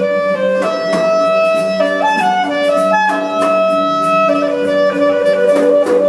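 Instrumental background music: a slow melody of long held notes over a steady low note, with light plucked attacks.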